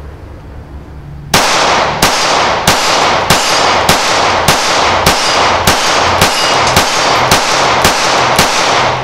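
Taurus G3c compact 9mm semi-automatic pistol firing a steady string of about thirteen shots, roughly three every two seconds, starting just over a second in. Each shot rings on in echo off a roofed shooting shed.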